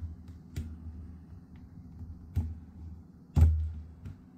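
Plastic display bezel of a Lenovo ThinkPad T490s giving sharp clicks as it is pulled away from the glued panel: three snaps, the loudest about three and a half seconds in, over the low rumble of hands handling the lid.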